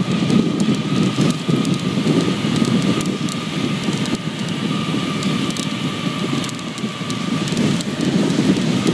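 Wind buffeting the microphone of a phone carried on a bicycle descending fast: a loud, steady rushing noise. A faint, steady high whine runs underneath it.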